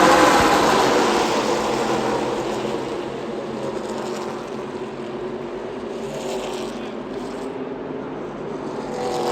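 NASCAR stock cars racing past the grandstand. The pack's engine note is loudest at first and fades as the cars pull away, then more cars come by near the end, their pitch dropping as they pass.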